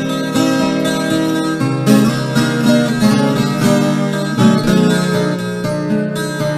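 Instrumental viola caipira (Brazilian ten-string folk guitar) music, plucked steel strings playing a continuous tune.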